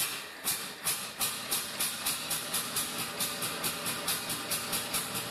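Landini Testa Calda tractor's single-cylinder two-stroke hot-bulb engine firing with sharp exhaust beats that quicken from about two to about four a second as it picks up speed just after starting. The hot bulb is still being heated by a propane burner.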